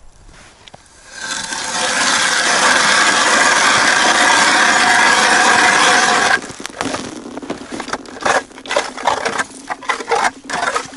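Hand ice auger boring through ice: a loud, steady grinding scrape that builds over about a second and stops abruptly about six seconds in. A run of shorter irregular scrapes and knocks follows.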